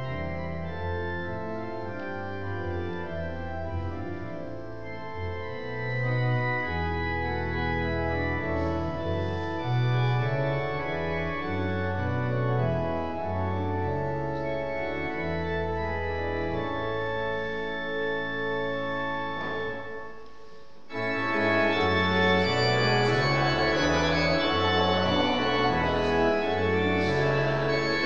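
Church organ playing held chords over a moving bass line. About two-thirds of the way through it breaks off briefly, then comes back louder and fuller.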